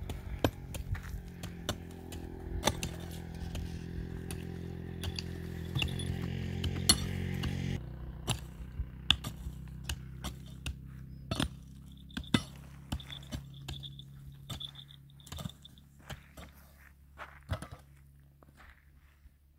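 Irregular clinks and knocks of hard objects being handled, over a steady low hum that drops in level about eight seconds in.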